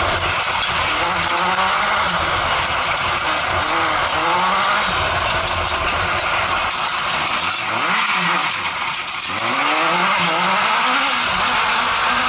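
Honda CBR1000F inline-four motorcycle engine driving an off-road buggy, its revs rising and falling again and again with the throttle, over a constant rushing noise. The revs and the low rumble drop briefly about eight seconds in, then climb again.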